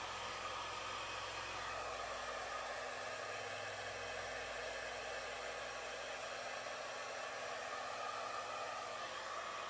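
Hair dryer running steadily, blowing wet acrylic pour paint outward into a bloom. A low hum under it stops about four seconds in.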